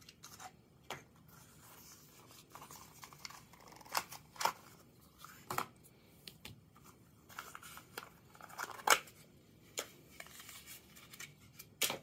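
Hands unpacking a Zippo arc lighter insert: cardboard box and packaging rustling and scraping, with scattered sharp clicks and taps as the metal insert and its USB charging cord are handled.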